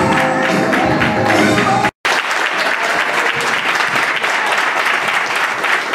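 Recorded music playing over clapping for about two seconds, broken off suddenly, then an audience applauding steadily.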